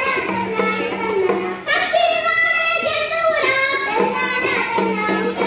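Young girls singing a Telugu burra katha, a sung folk narrative, into microphones, with hand-drum accompaniment. The singing pauses briefly twice.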